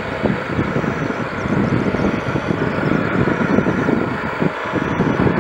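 Airbus Helicopters EC155B1's turbines and main rotor running steadily while it sits on the ground, a continuous dense rotor-and-engine noise heavy in the low end.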